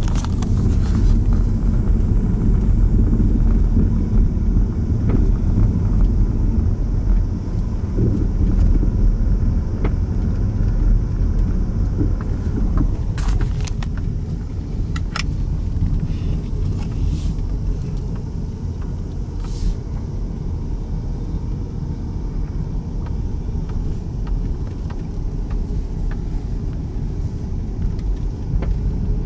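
Low steady rumble of a car rolling slowly, with a few faint clicks now and then. It eases a little in the second half.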